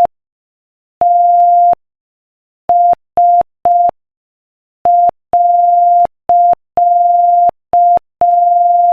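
Morse code practice at 5 words per minute, sent as a single steady beeping tone keyed in short dits and long dahs. It spells T (dah), S (dit-dit-dit) and a full stop (dit-dah-dit-dah-dit-dah), ending a sentence of the quotation.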